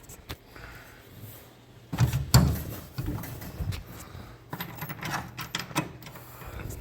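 Clunks, knocks and clicks of a pinball machine's cabinet panels being handled and closed, the loudest about two seconds in and a quick run of clicks later on, over a steady low hum.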